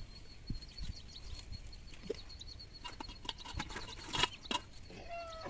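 Quiet rural outdoor ambience: scattered light rustles and clicks over a faint steady high whine, with a short crackle about four seconds in and a brief animal call about five seconds in.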